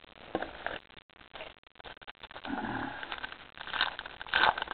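Trading cards and a foil booster-pack wrapper being handled, rustling and crinkling in short, irregular bursts that grow busier in the second half.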